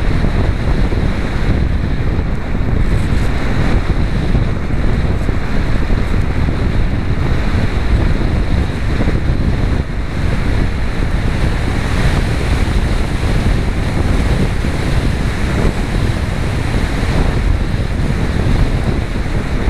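Steady rush of airflow buffeting the onboard camera's microphone on an FPV model aircraft in flight, with a faint steady high whine underneath.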